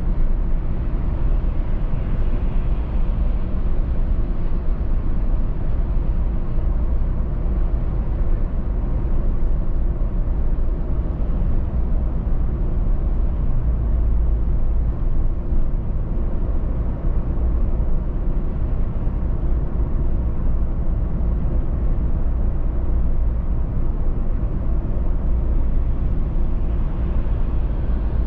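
A car driving at steady speed: an even low rumble of tyres on the road and the engine, with no sudden sounds.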